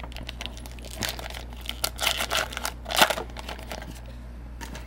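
A trading-card pack wrapper being crinkled and torn open by hand, in irregular crackles that are busiest in the middle, with the loudest about three seconds in, then dying down. A faint steady low hum lies under it.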